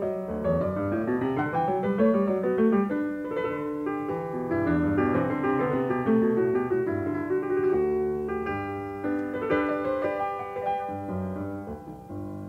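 Piano music: a melody of separate notes over lower chords, growing quieter near the end.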